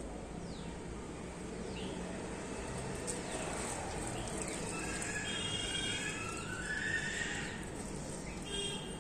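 Animal calls: a series of short falling calls, and a longer call with several tones about five to seven seconds in, over a steady outdoor background.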